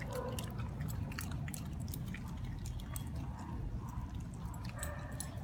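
Dogs mouthing and chewing raw fish: irregular small wet clicks and smacks, over a low steady rumble.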